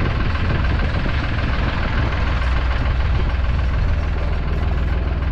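Small fishing boat's motor idling, a steady low rumble with a fine regular pulse, under a constant rushing noise of wind and sea.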